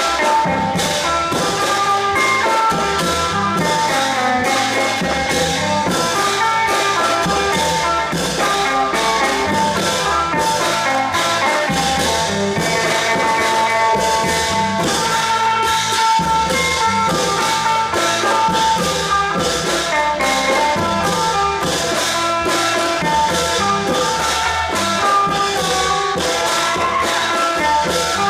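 Thai long-drum (klong yao) ensemble playing: a steady drum beat with percussion under a sustained melody line.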